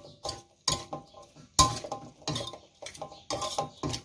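Metal spoon and spatula clinking and scraping against a metal wok while tossing sliced pork, a quick, irregular run of ringing clinks, several a second.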